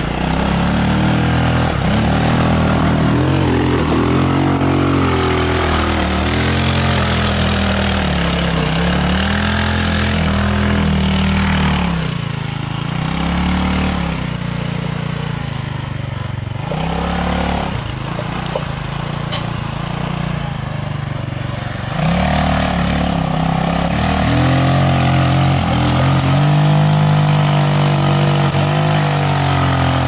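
Off-road go-kart's engine revving up and falling back again and again as it is driven. It runs softer for several seconds in the middle, then picks up again.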